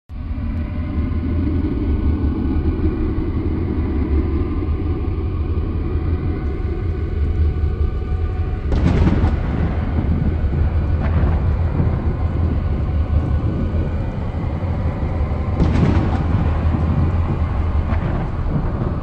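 Thunderstorm sound effect: a deep, steady rumble broken by sudden loud thunderclaps about nine and sixteen seconds in, with fainter cracks around eleven and eighteen seconds.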